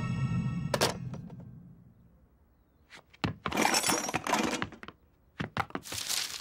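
A music sting fades out, cut off by a sharp crash about a second in. After a short silence come knocks and long stretches of clattering and crashing, cartoon sound effects of household clutter being thrown about as someone rummages through a messy room.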